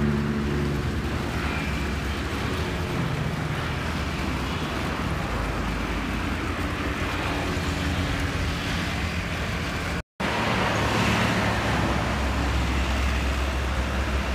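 Steady road traffic and vehicle engine noise, with a low engine hum under the rush of the road. The sound cuts out for a moment about ten seconds in.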